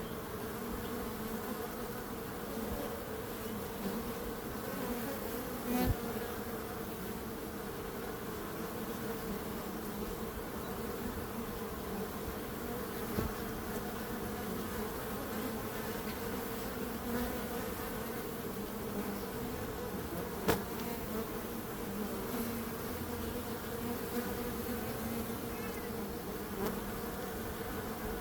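Bees buzzing in a continuous, steady hum. Two brief sharp clicks cut through it, about six seconds in and about twenty seconds in.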